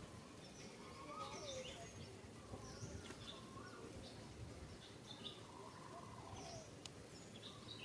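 Faint outdoor background with birds calling: short high chirps scattered throughout and a few wavering, warbling calls about a second in, around three seconds and near six seconds.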